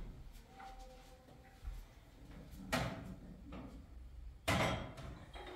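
A few short knocks, like household objects being handled or set down. The two loudest come about three and four and a half seconds in, the second a little longer.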